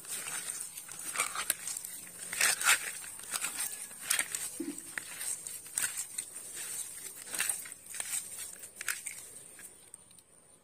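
Small snails in their shells being rubbed and squeezed by hand together with leafy greens in a plastic colander: irregular clicking and crunching of shells against each other with the crackle of crushed leaves, dying away near the end.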